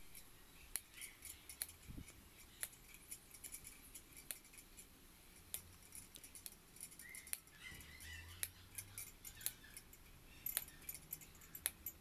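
Pliers cutting and clinking against wire netting: a scattering of sharp, irregular metallic clicks and snips.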